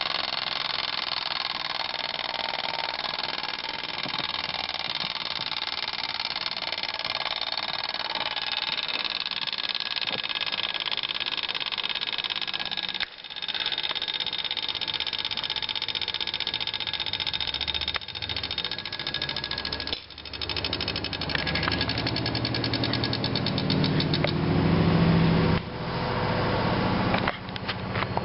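Lenzkirch carriage alarm clock's alarm ringing: rapid, continuous mechanical strikes with a high metallic ring. The ringing breaks off briefly a few times and grows louder and fuller in the last few seconds.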